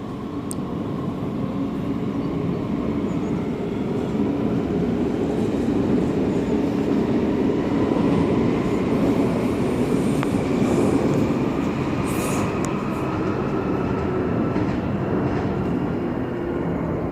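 DBAG Class 423 electric S-Bahn train running at the platform: a steady rolling rumble with a faint electric whine that rises slowly in pitch, and a few short high clicks.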